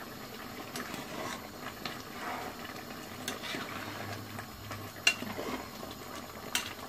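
Steel ladle stirring vegetable biryani in an aluminium pot, with soft scraping and a few light clinks against the pot, the sharpest two about five and six and a half seconds in, over a steady low hiss from the pot on the gas stove.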